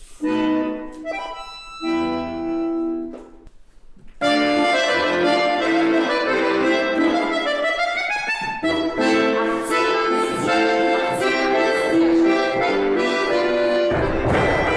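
Accordion playing dance accompaniment: a few short held chords with pauses, then about four seconds in a lively tune starts and runs on steadily. A dull noisy thump sounds near the end.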